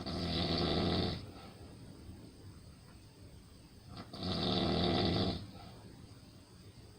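Snoring from a sleeper: two snores, each lasting a little over a second, about four seconds apart, with quiet breathing in between.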